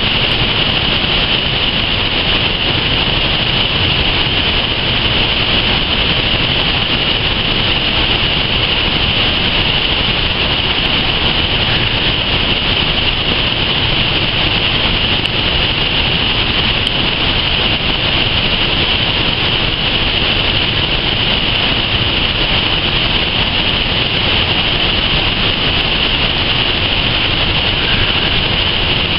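Rushing river water tumbling over boulders: a loud, steady hiss with no let-up.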